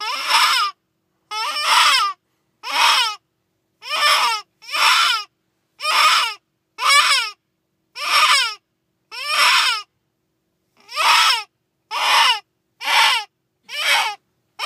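Predator call playing a wailing, baby-like distress cry over and over, each cry a short squall bending downward in pitch, about one a second, with a longer pause about ten seconds in.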